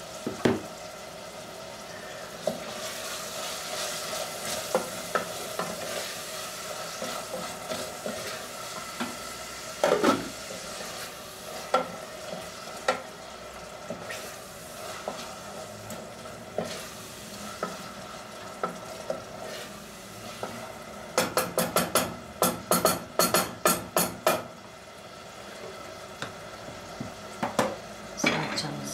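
Ground meat frying and sizzling in a pan while it is stirred with a spoon, with scattered scrapes and clicks. About two-thirds of the way in comes a quick run of sharp clattering knocks, several a second, lasting about three seconds.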